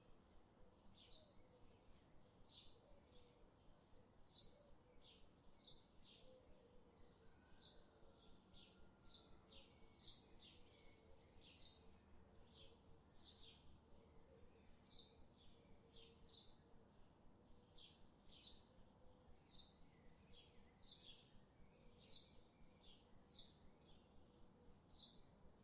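Faint birdsong: a steady run of short, high chirps, about two a second.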